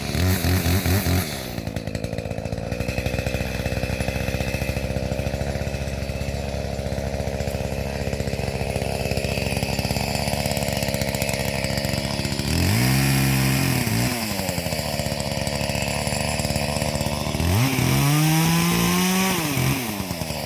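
Small Echo two-stroke chainsaw running at a steady low speed, revved up to cut three times: briefly at the start, once about two-thirds of the way in, and again near the end. Each time the pitch climbs and then falls back.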